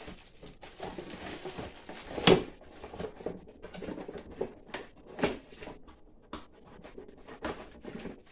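Rustling and handling noise from unpacking a cardboard box and a plastic decoration: scattered crinkles and scrapes, with a sharp knock about two seconds in and another about five seconds in.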